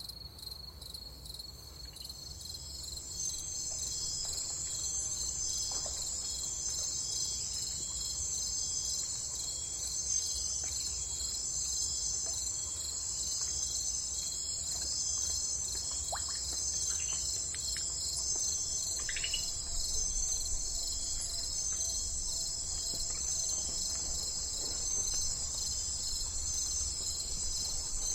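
Crickets chirping in a steady, evenly pulsing chorus that fades in over the first few seconds. A few brief bird chirps come around the middle.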